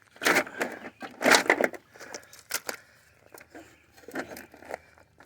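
Irregular metal clanks and scrapes from hand work on a scrap air conditioner's parts, with the loudest knocks in the first two seconds.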